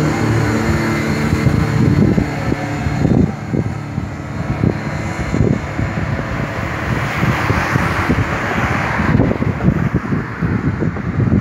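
Wind buffeting the microphone over the road noise of a car driving along, with gusty low thumps throughout and a louder rush of noise for about two seconds past the middle.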